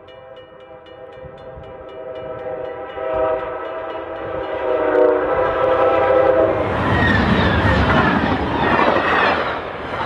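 Diesel passenger locomotive's horn sounding a long chord, growing louder as the train nears at speed. From about seven seconds in, the loud rush of the train passing, its lead engine's plow throwing up piled snow. Faint, regular ringing of crossing bells fades out early on.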